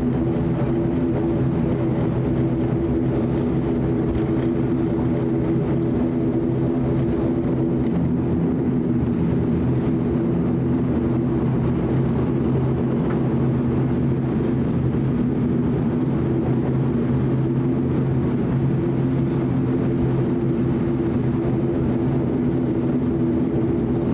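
ATR 72's Pratt & Whitney Canada PW127 turboprop engines and propellers running at taxi power, heard inside the passenger cabin: a steady drone with several held low tones.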